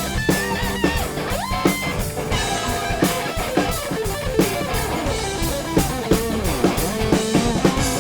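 Rock music with a steady drum-kit beat, a bass line and an electric guitar lead that bends up in pitch about a second and a half in.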